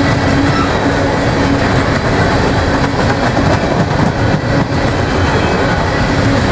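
Coal hopper cars of a freight train rolling past: steady, loud rolling noise of steel wheels on the rails, with a few clicks near the middle.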